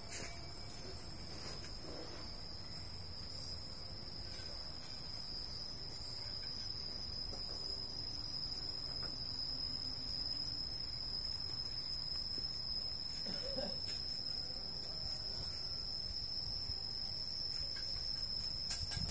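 Steady, high-pitched chorus of insects droning without a break, over a low rumble.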